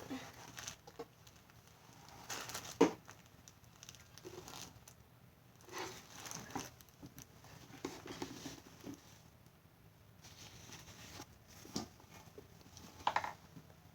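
Quiet, intermittent handling noises of slime putty and supplies: soft crinkling and crackling with scattered clicks, the sharpest a single click about three seconds in.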